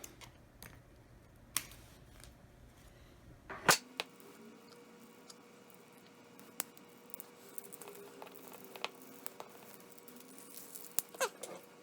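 Scattered small clicks and crackles of a tool working at a phone's cracked glass screen, the sharpest about a second and a half and just under four seconds in, with a few more near the end.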